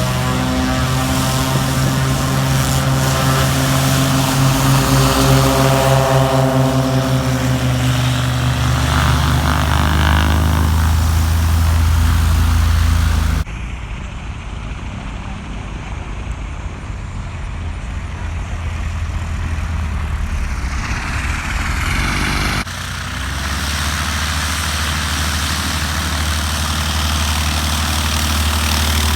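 Light propeller aircraft's piston engine running steadily, with a deep, even drone. The sound cuts abruptly to a quieter, duller stretch about 13 seconds in, then back to the louder drone about 23 seconds in.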